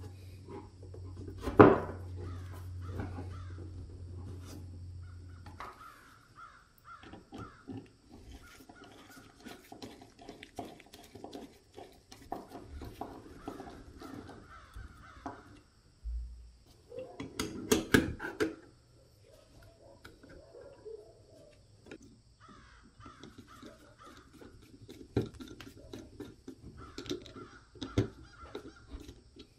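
Metal airgun parts and hand tools clicking and knocking on a wooden workbench as the gun is reassembled, with a sharp knock about two seconds in and a cluster of knocks around the middle. A bird calls repeatedly in the background.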